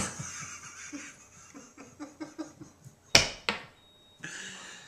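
Odd mouth noises made into a karaoke microphone and amplified through the machine: a sharp pop at the start, a run of small clicks, and two loud pops about three seconds in, followed by a breathy hiss.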